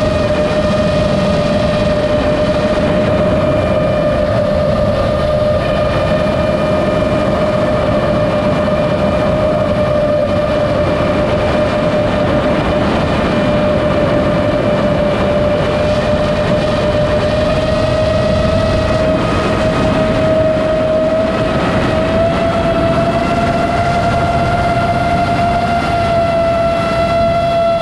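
The motors and propellers of an iFlight Chimera7, a 7-inch long-range FPV quadcopter, whine at steady cruise throttle over the rush of prop wash and wind. The pitch holds level and steps slightly higher about three quarters of the way through.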